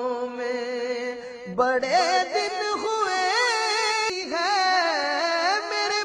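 A solo voice singing a devotional Urdu naat in long, wavering held notes that slide between pitches.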